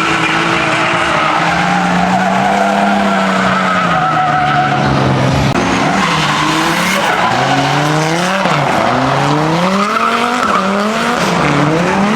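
BMW drift car's engine under hard throttle, its pitch holding and then rising and falling again and again through the second half, over tyres squealing as the car slides.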